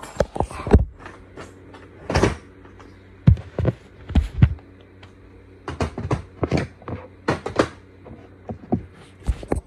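Handling noise: irregular knocks, clicks and bumps as a phone is set down and plastic nail-supply organizer cases and drawers are moved about on a desk, with a short lull about five seconds in.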